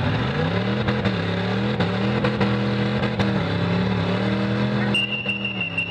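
Demolition derby cars' engines revving up and then running steadily at high revs. A high steady tone sounds for about a second near the end.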